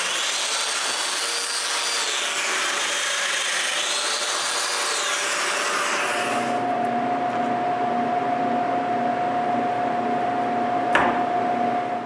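Festool Domino joiner running and plunging into wood, its motor whine rising and falling twice as it cuts. It stops about six and a half seconds in, leaving a steady hum, with a single click near the end.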